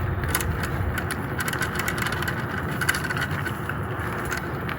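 A BMX bike being ridden, its tyres rolling steadily with scattered sharp ticks throughout.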